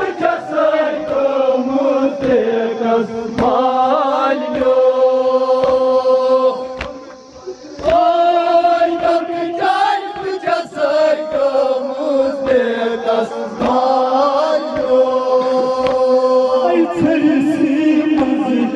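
Men's voices chanting a Kashmiri noha through a PA loudspeaker, long held notes led by reciters, with sharp slaps about once a second from mourners beating their chests. The singing dips for about a second, around seven seconds in.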